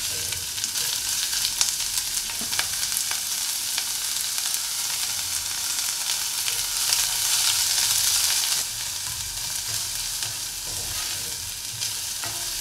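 Chopped garlic, carrots, beans and green peas sizzling in hot oil in a nonstick saucepan while a plastic spatula stirs them, with light scrapes and taps on the pan now and then. The sizzle grows louder for a couple of seconds past the middle.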